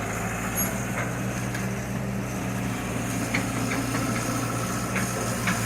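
Excavator's diesel engine running steadily, with a few faint short knocks.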